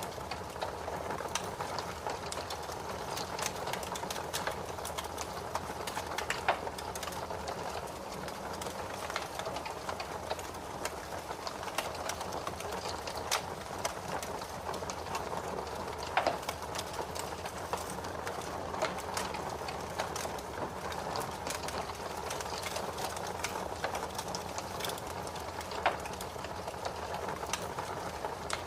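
Fireplace fire crackling steadily: dense small crackles over a soft hiss, with a few louder pops scattered through.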